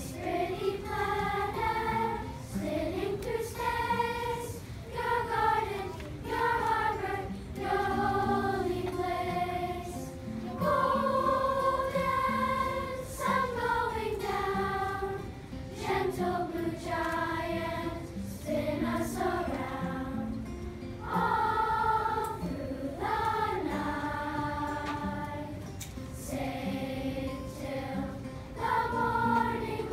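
Large children's choir singing a slow, gentle melody of long held notes, accompanied by an acoustic guitar.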